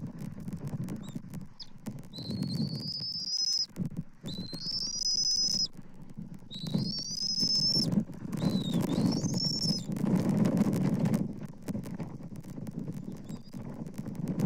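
Bald eaglet giving four long, high, thin whistled begging calls about two seconds apart, each rising then holding. A low rumbling noise and scattered clicks run underneath.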